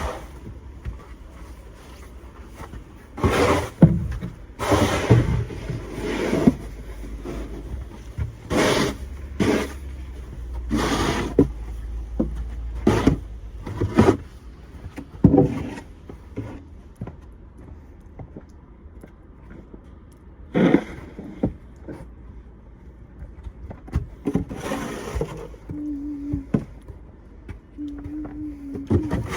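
Snow shovel scraping and scooping snow in about a dozen separate strokes at uneven intervals, most of them in the first half, over a steady low rumble.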